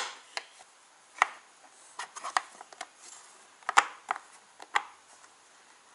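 Light, scattered clicks and ticks of wires being moved about and tapped against the terminal nuts and busbars of a LiFePO4 cell pack, about a dozen in all, with a quick cluster a little past two seconds in.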